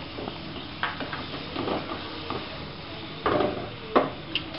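Wooden spatula scraping butter into a hot wok, knocking against the pan a few times, the loudest two near the end. The butter sizzles steadily as it melts in the pan.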